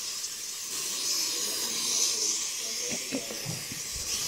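Aerosol can of Pam cooking spray giving a steady hiss as it coats a baking pan, greasing it so the batter won't stick.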